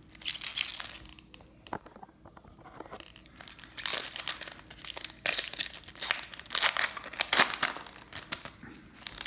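A baseball card pack wrapper being torn open and crinkled by hand, in irregular crackly bursts: a short one right at the start, then a longer, busier stretch from about four seconds in to near the end.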